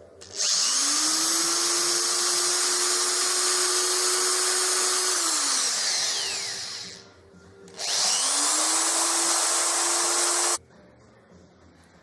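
Small high-speed electric drill spinning up and running steadily for about five seconds, then winding down. It starts again for about three seconds and stops abruptly. It is drilling a hole through the centre of a pencil's rubber eraser.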